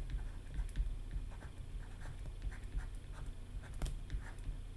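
Stylus writing on a tablet screen: light, scattered taps and scratches of handwriting over a low, steady hum.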